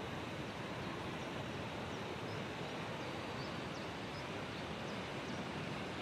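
Steady outdoor rushing noise, even and without pitch, with a few faint short high chirps now and then.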